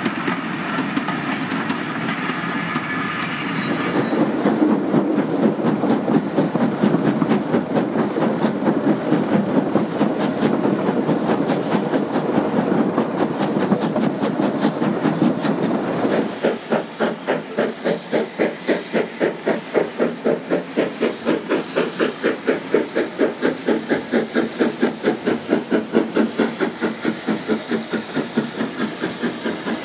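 Great Eastern Railway Class Y14 0-6-0 steam locomotive working a train of vintage four- and six-wheeled wooden carriages. First come the rattle and clickety-clack of the carriages over the rail joints, with hissing steam. About sixteen seconds in, the sound changes suddenly to the engine's steady chuffing exhaust at about three beats a second.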